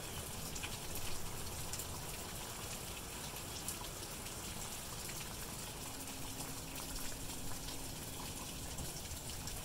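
Steady rain falling: an even hiss with scattered ticks of single drops. A faint low hum joins for about three seconds past the middle.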